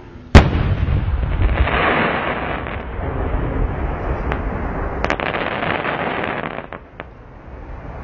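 Aerial firework shell bursting with one sharp bang, followed by several seconds of dense crackling from its stars with a few sharper pops. The crackling stops a little over a second before the end.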